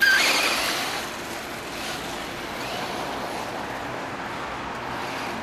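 Traxxas Stampede 4x4 VXL electric RC truck launched at full throttle on asphalt: its brushless motor and tyres start suddenly, loudest in the first second, then carry on as a steadier, quieter whirr and hiss.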